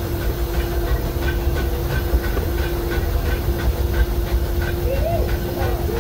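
Narrow-gauge passenger train under way behind a steam locomotive: a steady low rumble of wheels on the rails with regular light clicking, a steady humming tone and some steam hiss. A few brief wavering tones come in near the end.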